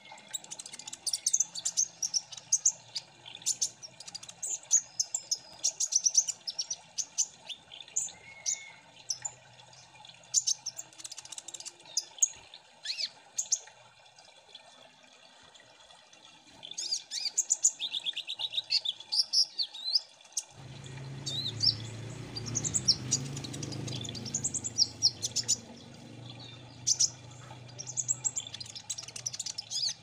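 Van Hasselt's sunbird (kolibri ninja) singing: a fast run of high, sharp chirps and twitters with a short buzzy trill about two-thirds through. A low hum comes in abruptly about twenty seconds in, under the song.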